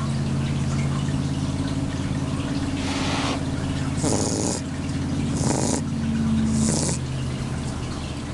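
Shar Pei puppy snoring in its sleep: a steady low, fluttering snore, with a breathy rush of air about every second and a quarter.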